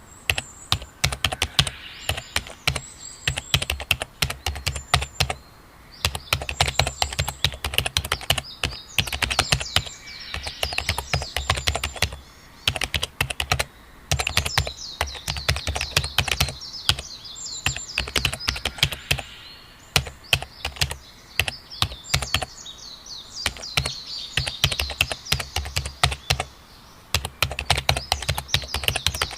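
Typing on a computer keyboard in quick runs of keystrokes broken by short pauses, with birds chirping and twittering.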